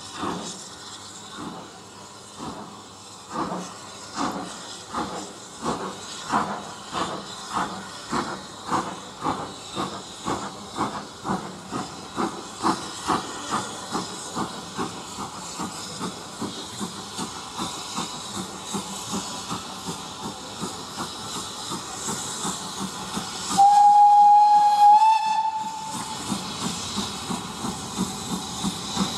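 Steam locomotive working with its exhaust beating about twice a second, the beats fading away after about fifteen seconds, over a steady hiss of steam. Near the end comes one steady steam whistle blast lasting about two seconds, the loudest sound.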